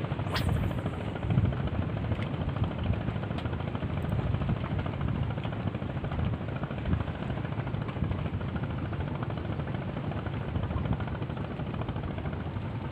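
Steady low rumble of wind buffeting the microphone. Near the start there is a brief high swish as the spinning rod whips forward in a cast.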